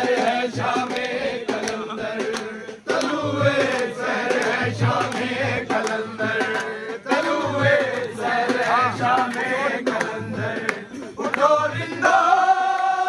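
A manqabat, a devotional song in praise of the Ahl al-Bayt, sung over a regular drum beat. Near the end the voice holds one long, steady note.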